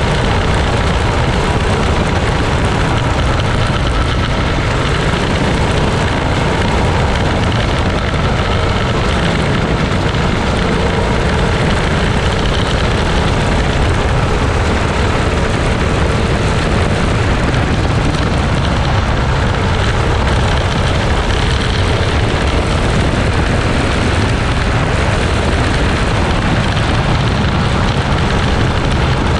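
Racing kart's engine running hard at speed on a dirt oval, heard from a camera mounted on the kart, mixed with heavy wind rush. The noise stays loud and even without a break.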